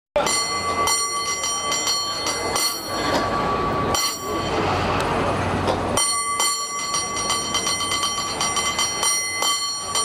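San Francisco cable car bell, rung by pulling its overhead cord, struck rapidly in a rhythmic pattern with its ringing tone sustaining throughout.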